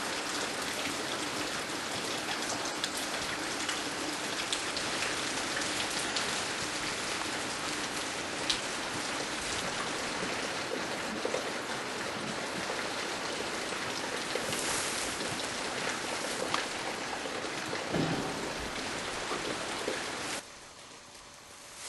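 Steady hiss of rain with scattered sharp drop-like ticks, cutting off suddenly about twenty seconds in.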